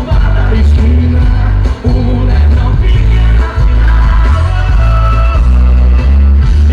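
Loud music with heavy bass and singing, played through a Fiat Stilo's car audio system.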